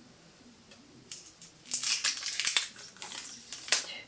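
Crinkling and rustling of cosmetic packaging handled in bursts as a lip gloss is taken up, starting about a second in, with a sharp crackle near the end.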